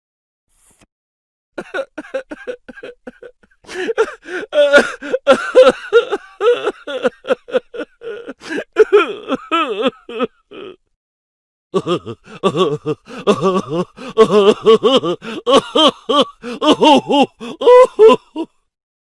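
A person's wordless vocalising in two long, choppy stretches, the second starting about twelve seconds in.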